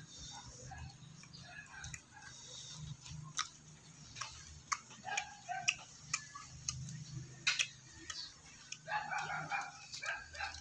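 Scattered sharp clicks and small cracks, irregular and a second or so apart, from brittle tamarind pod shells being cracked and peeled by hand.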